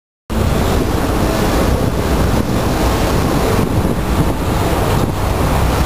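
Hitachi Zaxis 250 LCN excavator working demolition rubble: its diesel engine and hydraulics running steadily and loudly, with a few faint knocks. The sound cuts in suddenly a moment in.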